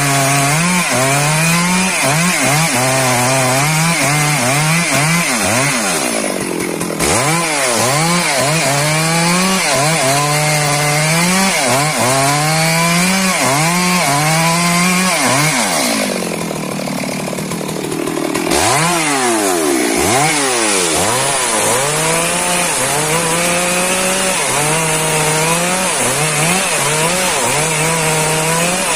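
Chainsaw running at high revs and cutting through wood, its engine note rising and falling as the chain bites and eases. The cutting noise drops away briefly twice, once after about six seconds and again for a couple of seconds past the middle, before the saw bears down again.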